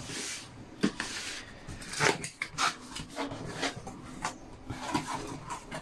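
Cardboard box being handled and opened by hand: irregular scraping and rubbing of the flaps, with a few short sharp taps.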